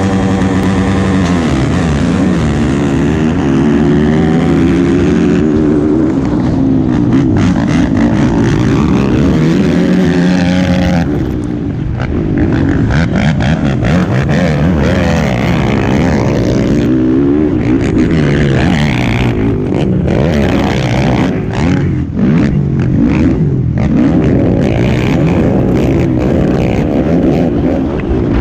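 Racing quad's engine revving hard, its pitch climbing and dropping again and again through shifts and corners, heard close up from the rider's helmet camera, with short rough bangs and buffeting along the way.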